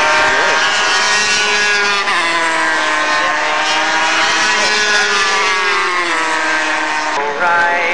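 Several superbike racing motorcycles' engines running at high revs as they go round the circuit. The pitch drops about two seconds in, then rises and falls slowly as they pass.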